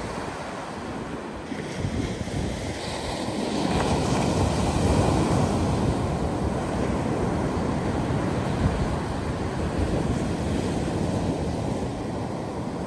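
Ocean surf: waves breaking and washing up a sandy beach, swelling louder about four seconds in.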